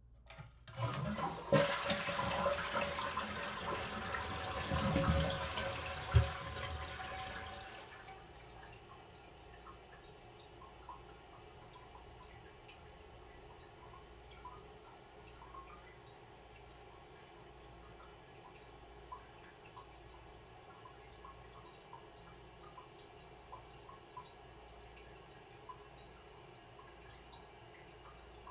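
Toilet flushing: a loud rush of water starts about a second in, peaks sharply around six seconds and dies away by about eight seconds. Quieter trickling follows, with scattered small drips.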